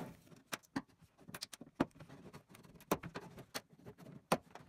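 Plastic door-panel retaining clips on a 1985 Toyota pickup door cracking and popping as a prying panel-popper levers the trim panel off the door. It comes as an irregular series of sharp clicks and cracks that sound like breaking plastic.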